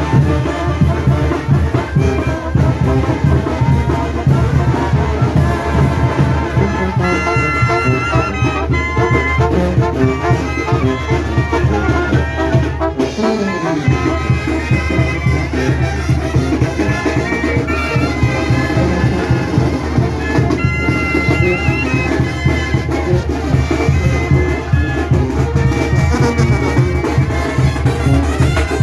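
Mexican banda brass band playing: trumpets and trombones over a steady low bass line, with one low note sliding down about halfway through.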